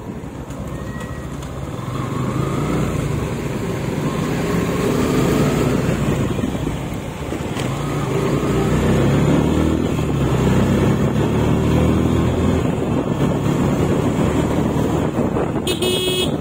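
Motorcycle engine running on the road, its pitch climbing as it accelerates, easing off briefly about seven seconds in, then climbing again. A brief high tone sounds near the end.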